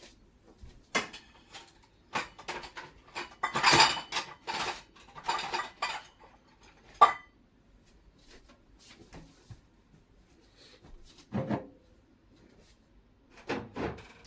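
Kitchen utensils clinking and knocking against dishes: a run of separate clicks and knocks, busiest in the first half, with one sharp knock about seven seconds in and a few softer ones later.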